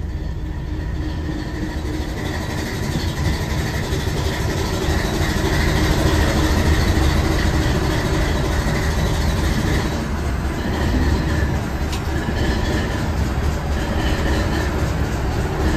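Class 450 'Thumper' diesel-electric multiple unit heard from the cab on the move: the English Electric 4SRKT diesel engine runs with a deep, steady drone, under the wheels clicking over the rails.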